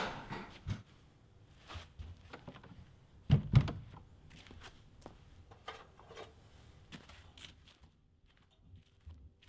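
Two heavy thuds in quick succession a few seconds in, amid scattered light knocks and footsteps.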